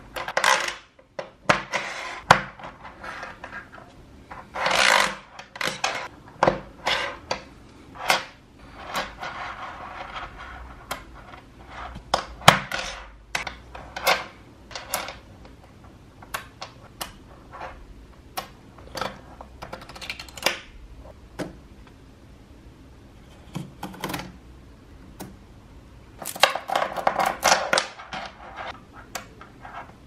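Small magnetic balls clicking as they snap together and clattering on a tabletop as they are pushed into rows. Scattered sharp clicks alternate with short bursts of rattling, and the longest clatter comes near the end.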